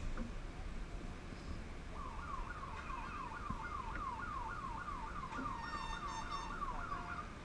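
Electronic siren sounding a rapid yelp, each sweep falling in pitch, about three a second; it starts about two seconds in and stops shortly before the end.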